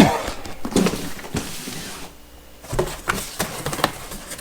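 Cardboard boxes and packing being handled: a string of short knocks and clicks with rustling, loudest right at the start.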